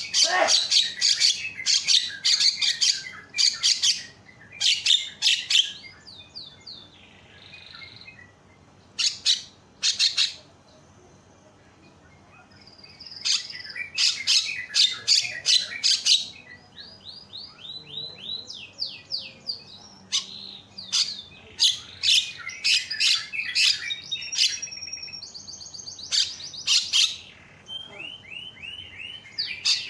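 Javan myna calling loudly: bursts of rapid, harsh chattering notes alternating with runs of short whistled notes that slide in pitch, with brief pauses between phrases.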